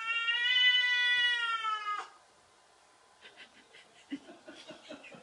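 Domestic cat giving one long, drawn-out meow that rises a little, then drops and cuts off about two seconds in, followed by faint light taps and rustles.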